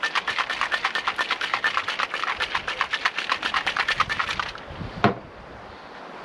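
Ice rattling in a cocktail shaker shaken hard and evenly, about eight strokes a second. The shaking stops about four and a half seconds in, followed by a single knock.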